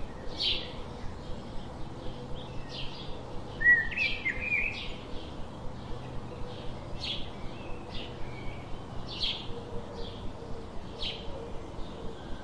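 Birds chirping: short, high calls repeat about once a second, with a louder, lower trilling call about four seconds in.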